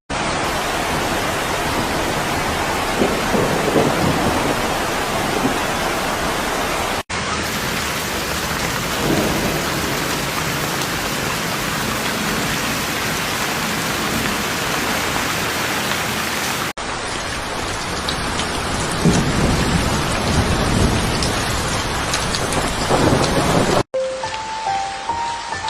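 Heavy, steady rain with low rumbles of thunder swelling several times. The sound cuts off abruptly twice where clips are joined, and music comes in near the end.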